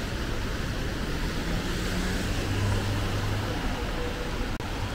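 Steady city street traffic: a continuous hiss of tyres on wet road, with a low vehicle engine hum swelling about halfway through.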